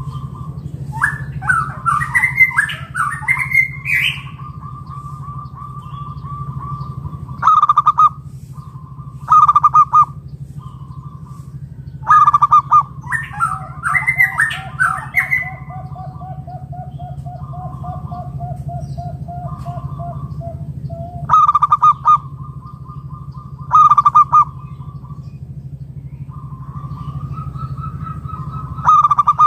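Zebra doves (perkutut) cooing: loud, clipped coo notes that run into long rolling trills at a steady pitch, with a second, lower rolling trill joining from about thirteen seconds in. Twice, about a second in and again about thirteen seconds in, a higher warbling chirp overlaps the cooing, and a steady low hum runs underneath.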